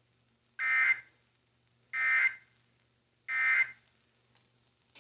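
Emergency Alert System end-of-message code: three identical short buzzy data bursts of SAME digital tones, about a second and a half apart, marking the end of the tornado warning alert.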